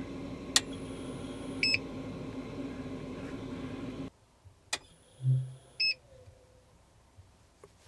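A click, then about a second later a short high electronic beep, heard twice, as a phone is connected to charge from a power inverter. A steady hum runs under the first half and cuts off abruptly at about four seconds. A brief low buzz comes just before the second beep.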